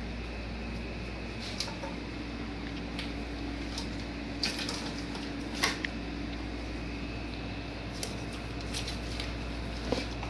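Hands working wiring connectors and hoses in an engine bay: scattered light clicks and knocks, the loudest about halfway through, over a steady low hum.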